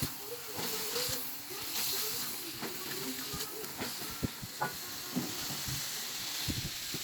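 Food sizzling as it fries in hot oil in a pan, a steady hiss with scattered small pops and crackles.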